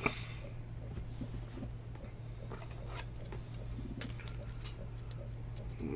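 Faint clicks and light rustling of a trading card and a clear plastic sleeve being handled, a few soft ticks a second or more apart, over a steady low hum.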